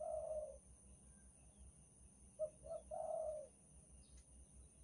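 Spotted dove cooing: the end of one call right at the start, then a full call about two and a half seconds in, two short coos followed by a longer drawn-out one.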